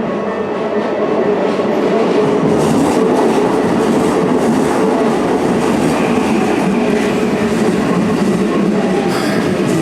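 Keikyu electric train passing over a level crossing close by, the noise of its wheels on the rails building up over the first couple of seconds and then holding loud and steady.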